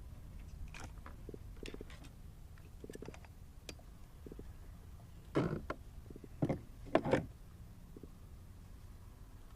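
Handling noise aboard a kayak while a caught fish is dealt with: small clicks and rattles, then three louder short knocks or flops between about five and seven seconds in.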